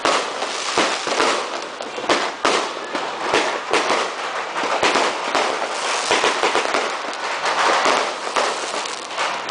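Aerial fireworks going off overhead: a dense, irregular run of bangs and crackles, many shells bursting one after another with no pause.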